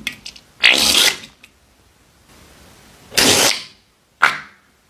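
Slime and trapped air sputtering out of the rubber necks of slime-filled balloons as they are squeezed into a bowl of slime, in three short bursts: one about a second in, one about three seconds in, and a sharper one just after four seconds.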